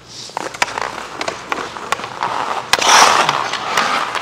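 Hockey skate blades scraping across the ice while the stick blade clicks against the puck as it is carried. The scraping is loudest about three seconds in.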